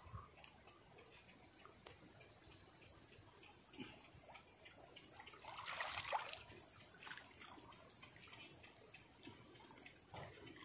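A steady, high drone of insects, with water splashing and dripping as a man wades through a pond; the splashing is loudest about six seconds in.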